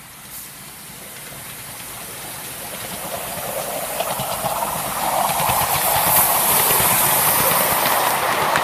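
Miniature ride-on steam locomotive approaching and passing close, getting steadily louder: hissing steam, with its wheels and carriages clicking over the rail joints.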